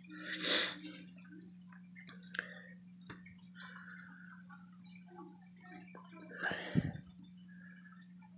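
Rustling and faint clicks from a phone being handled and moved around inside a reptile enclosure, with two louder scuffing bursts, one about half a second in and one near seven seconds, over a steady low hum.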